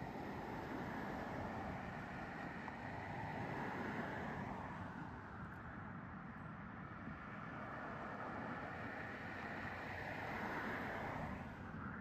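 Road traffic noise: a steady rush of passing vehicles that swells twice, about four seconds in and again near the end, then drops away suddenly just before the end.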